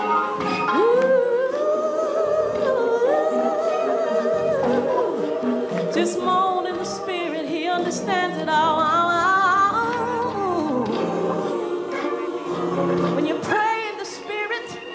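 Female gospel singer singing a slow, sustained melody, with fast ornamented vocal runs about eight seconds in.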